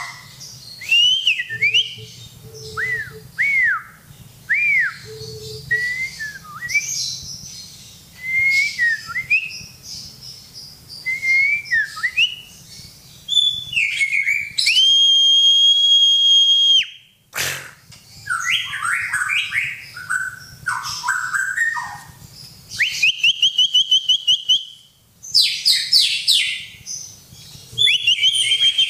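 White-rumped shama (murai batu) singing a long, varied song of loud whistled phrases: arched and sliding notes, a long steady whistle a little past halfway, and fast rattling trills near the end.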